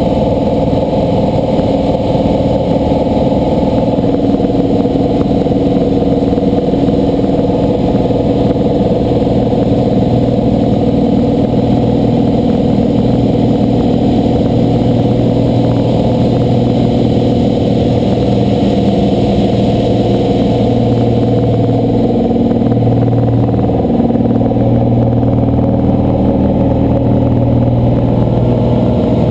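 Slingsby T-67 Firefly's piston engine and propeller running steadily in flight, heard from inside the cockpit. The engine note shifts slightly in the second half.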